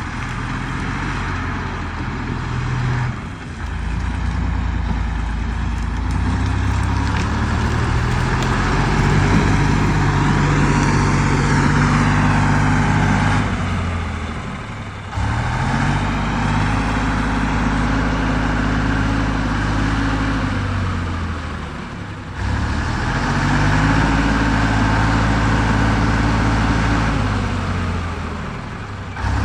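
Ural-375 truck's V8 petrol engine running hard under load. Its revs drop sharply several times and build back up after each drop.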